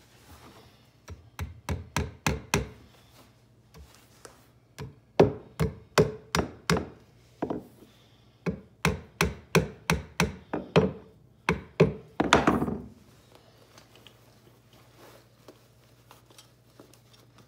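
Claw hammer tapping small 4-penny finish nails in at an angle to toe-nail a wooden post to the floor: several quick runs of sharp knocks, about three to four a second, ending in a faster flurry and then stopping a few seconds before the end.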